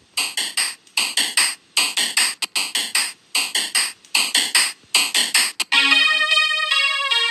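Electronic music: short, choppy synthesizer notes in quick groups with gaps between them. About six seconds in, a smoother keyboard melody with held notes takes over.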